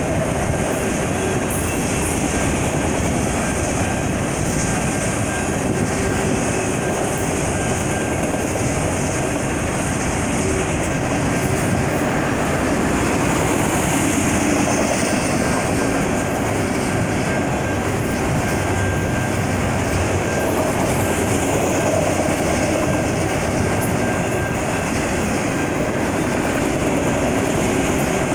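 Freight train of enclosed autorack cars rolling past at close range, a steady, unbroken noise of wheels on rail with no change in level.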